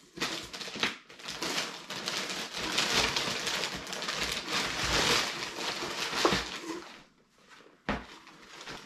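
A plastic bag crinkling and rustling as items are unwrapped and pulled out of a cardboard box, with the box flaps rustling. It stops after about seven seconds, and a single short knock follows about a second later.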